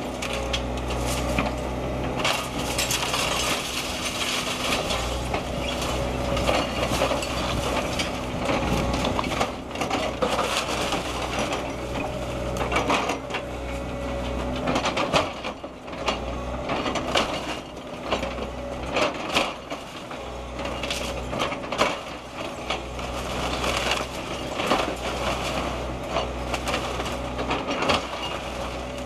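Link-Belt hydraulic excavator demolishing a brick house: its diesel engine runs steadily underneath while wood framing cracks and splinters and brick and debris crash and clatter down in repeated, irregular impacts.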